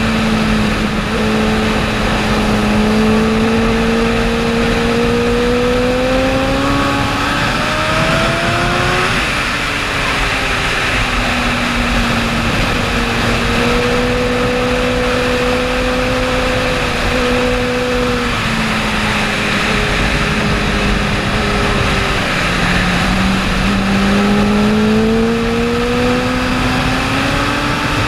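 Honda sport motorcycle engine heard from the bike on track, with wind rushing over the rider. The engine note climbs slowly for the first several seconds, drops, then holds steady through a long bend. It falls away again a little past halfway and climbs once more near the end as the bike accelerates.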